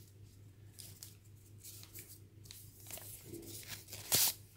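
Faint rustling and handling of food packaging over a steady low hum, with one short, loud rustle near the end.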